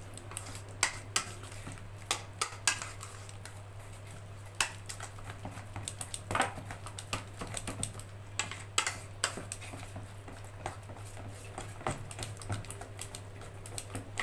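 Soft zalabia yeast batter being beaten and kneaded by hand in a bowl: irregular wet slaps and clicks, over a steady low hum.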